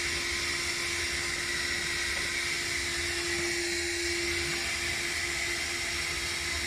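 Vacuum cleaner running steadily with a constant whine, its hose drawing built-up dust out of a tankless water heater's clogged fan vent.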